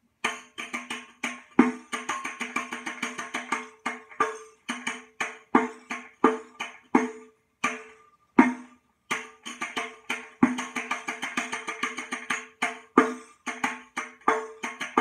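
Riq (Arabic frame tambourine with brass jingles) played in the 13/4 Murabba' rhythmic cycle: deep ringing dum strokes on the drum head alternate with sharp, jingling tak strokes, with fast ornamental rolls filling between them. The pattern comes round about twice.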